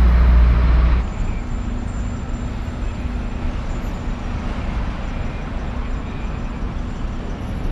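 City street traffic: a deep heavy-vehicle engine rumble that stops abruptly about a second in, followed by quieter, steady traffic noise.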